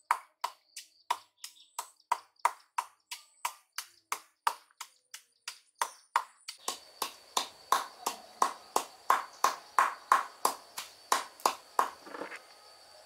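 A steady series of sharp knocks, about two to three a second, like repeated striking on a hard surface. A faint steady high-pitched tone sits behind them and grows stronger about six and a half seconds in.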